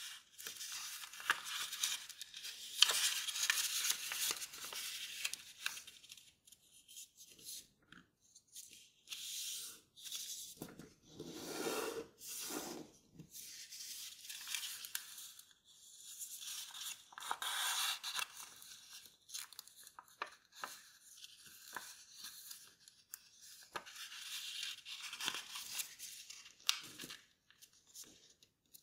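Sheet of kraft paper rustling and crinkling as it is folded and creased by hand, in irregular bursts with short gaps and occasional sharp creasing clicks.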